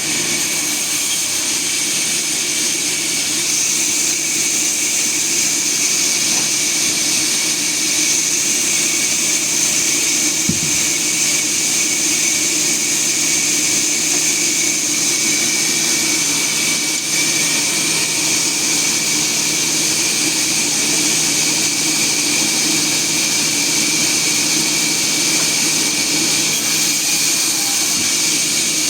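Sawmill machinery running with a steady, unchanging whine and hiss.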